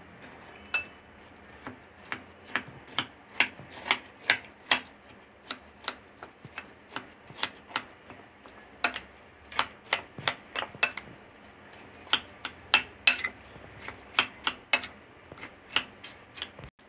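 Metal spoon clinking against a glass bowl in irregular sharp taps, about two or three a second, while mixing and mashing milk-soaked fried bread pieces.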